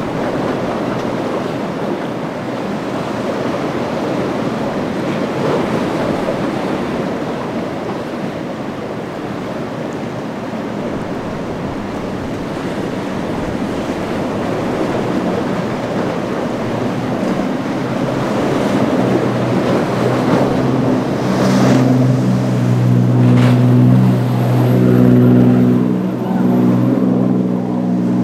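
Breaking surf and wind on the microphone, then from about halfway a Privateer sportfishing boat's inboard diesel engine comes in under the waves, a steady engine drone that grows louder, with a couple of splashes of spray.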